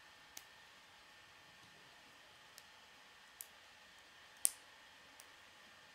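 K'nex plastic rods and connectors being snapped together by hand: five short, sharp clicks spread unevenly, the loudest about two-thirds of the way through.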